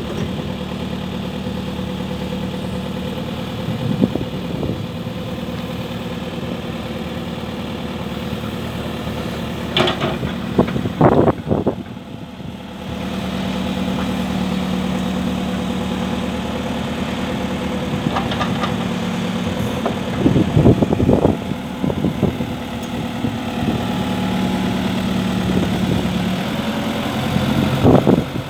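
Volvo BL71 backhoe loader's diesel engine idling steadily, with a few sharp knocks and clunks scattered through.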